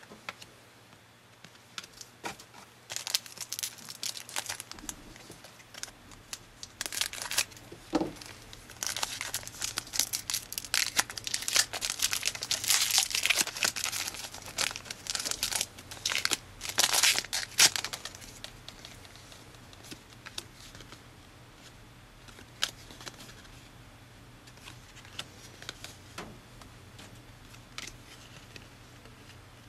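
Trading card pack wrapper being torn open and crinkled by hand: a dense run of crinkling and tearing for about fifteen seconds, loudest near the end of that run, then only faint handling ticks.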